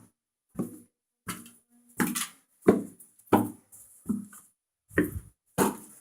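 A person breathing hard in short, voiced breaths, about one and a half a second.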